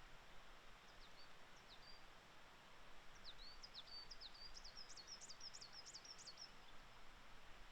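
Coal tit singing faintly: a few thin high notes, then about three seconds in a fast run of repeated high, sharp two-part notes lasting several seconds.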